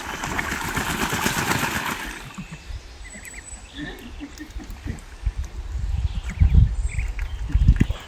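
A duck splashing and bathing in a small water-filled plastic pool, most strongly in the first two seconds, with a few short high calls from the flock. Low wind rumbles buffet the microphone near the end.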